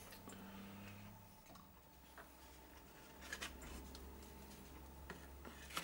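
Near silence: a faint low hum of room tone, with a few faint clicks about halfway through as plastic model kit parts are handled on the bench.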